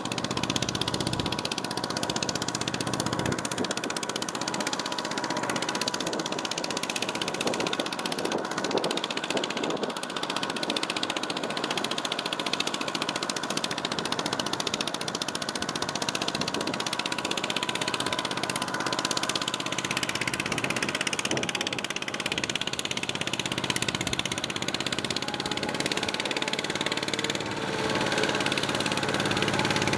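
Single-cylinder diesel engine of a Kubota mini trailer-tractor running steadily, growing a little louder near the end.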